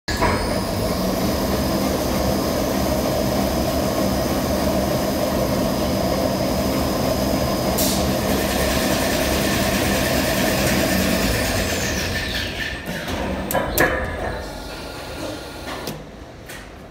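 Sm-Tk-150 toilet paper and kitchen towel converting line with three-colour flexo printing running at speed, a steady machine noise with a high whine. About eleven seconds in the whine slides down and the machine winds down, with a few sharp knocks as it slows.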